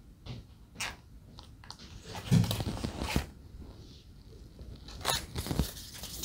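Hands handling small pieces of cardboard and a hot glue gun set down on cardboard: a few short crunchy scraping and rustling sounds, the loudest about two and a half seconds in and another group near the end.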